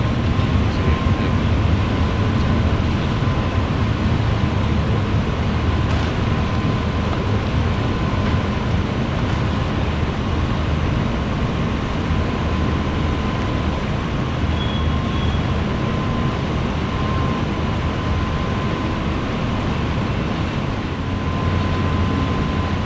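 Double-stack intermodal freight train rolling past at steady speed: a continuous low rumble of wheels on rail, with a thin steady whine above it.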